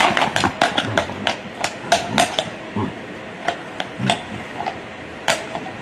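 Hooves of heavy draft horses knocking and scraping on cobblestones as a stallion rears up and mounts a mare: a quick run of sharp knocks over the first couple of seconds, then scattered single knocks.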